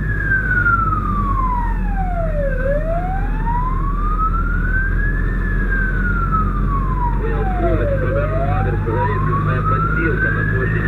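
Fire engine's wail siren sweeping slowly down and up, reaching its low point twice, about five and a half seconds apart, heard from inside the cab over the steady low hum of the truck's engine.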